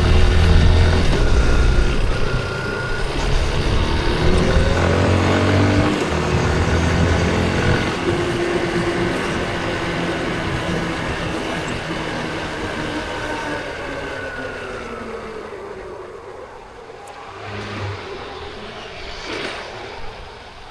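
Yamaha Crosser 150's single-cylinder engine running on a city ride: its note rises under acceleration a few seconds in, then falls away as the bike slows. The sound grows steadily quieter toward the end, with a heavy low rumble of traffic in the first few seconds.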